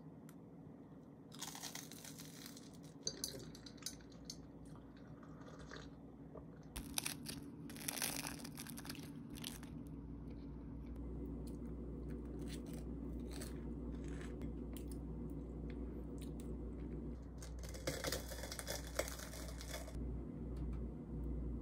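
Crunching and chewing of a crispy fried Korean hot dog, in three clusters of bites, with the crisp crust of a fried cheese ball torn open near the end. A low steady hum runs underneath.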